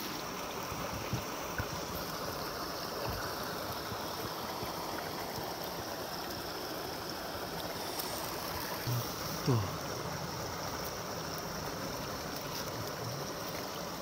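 Small mountain stream flowing steadily: an even rush of water close by. A brief low sound stands out about nine and a half seconds in.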